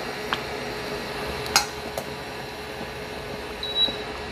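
Metal tongs clinking against a stainless steel pot: a few light clinks, the sharpest about a second and a half in, and a brief high squeak near the end, over a steady hum.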